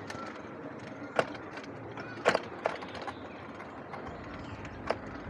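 E-bike rolling along a paved path: steady tyre and wind noise, broken a handful of times by sharp knocks as the bike jolts over bumps and joints in the path.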